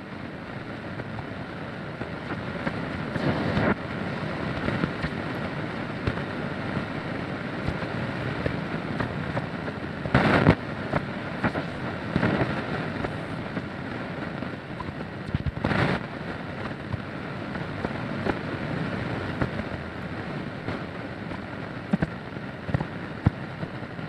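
Shortwave radio being tuned between stations: a steady hiss of static with crackles and clicks. Louder swells of noise come about three and a half, ten and sixteen seconds in.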